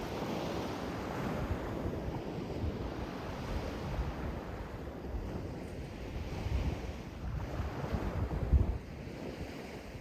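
Sea waves washing on the shore with wind buffeting the microphone; a strong gust rumbles on the microphone about eight and a half seconds in, then the sound eases.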